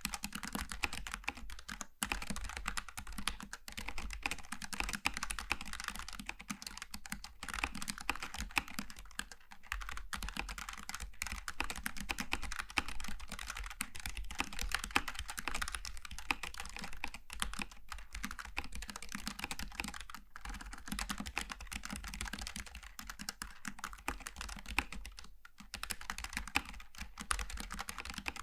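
Continuous fast typing on a Logitech G915 TKL low-profile mechanical keyboard with GL Tactile switches: a dense run of key clicks with a few brief pauses.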